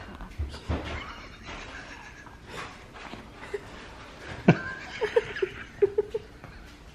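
Soft, stifled laughter: a quick run of short chuckles a little past the middle, just after a single sharp knock.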